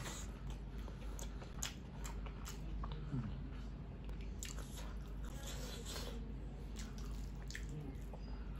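A man chewing food close to the microphone: wet, squishy chewing with irregular small clicks and crackles.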